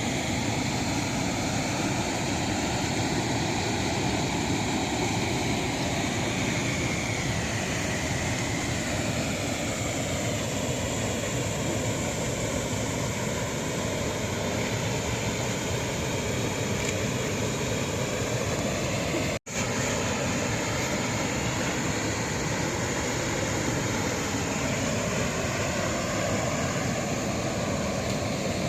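Steady rushing of a waterfall, an even wash of falling water; the sound cuts out for an instant about two-thirds of the way in.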